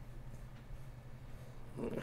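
Quiet room tone with a steady low hum, and a brief low vocal murmur near the end.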